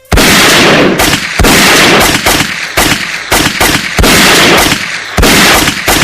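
Pistol shooting sound effect: about nine gunshots fired at an uneven pace, one or two a second, each with a long echoing tail.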